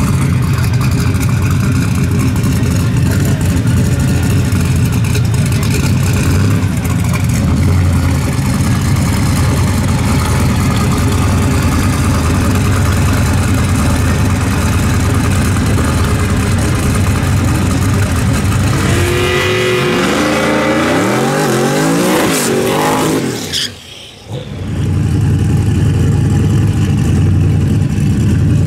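Engine of a turbocharged drag-racing mini pickup running loud at the starting line. About two-thirds of the way in, the revs climb for a few seconds, then the sound drops off sharply for about a second before the engine noise comes back.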